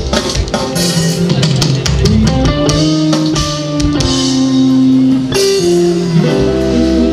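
A live pop-rock band playing through a large outdoor PA: electric guitars, bass and drum kit, with regular drum hits under sustained guitar and keyboard notes.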